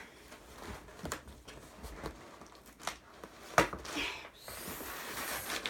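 Packaging being handled and opened: scattered clicks and knocks, then a high rustling hiss for about a second near the end.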